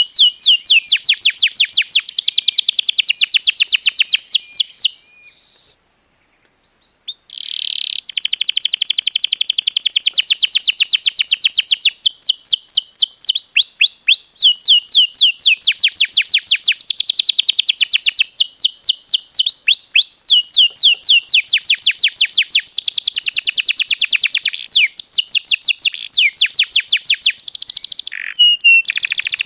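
Domestic canary singing long, rapid rolling trills, with a pause of about two seconds some five seconds in.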